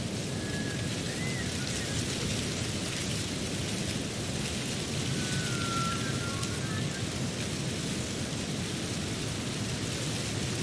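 Steady rushing noise with a low rumble beneath it, with a few faint, brief high whistling tones coming and going.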